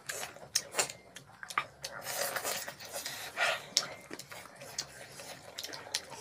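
Eating sounds close to the microphone: wet chewing and irregular lip-smacking clicks, with fingers squelching through rice and curry, and a couple of longer breathy sounds midway.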